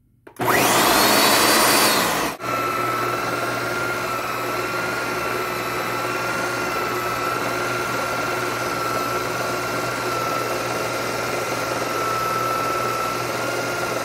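Ninja countertop blender starting up with a rising whine, louder for the first two seconds, then, after a brief break, running steadily with a constant whine as it purées cucumber chunks with water and juice into a smooth liquid.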